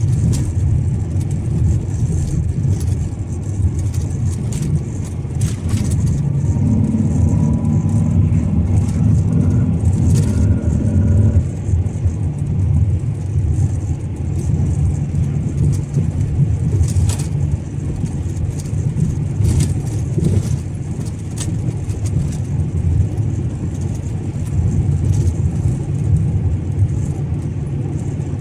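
Car driving along a road: a steady low rumble of engine and tyre noise. From about seven to eleven seconds in, a pitched hum with several tones comes in, rising slightly, and a few short clicks or knocks are heard.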